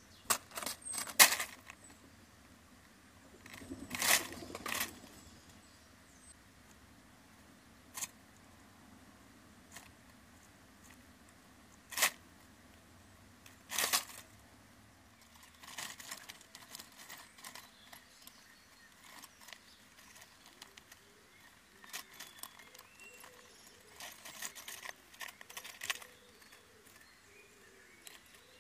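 Dry leaf bedding in a hedgehog house rustling and crackling in short bursts as small animals move about in it, with the loudest crackles about a second in and around the middle, then softer scratchy rustling through the second half.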